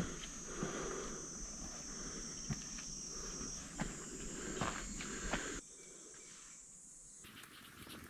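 Insects droning in a steady high-pitched chorus, with hikers' footsteps scuffing and thudding on a steep dirt trail. The drone drops out briefly about two-thirds of the way through and returns near the end.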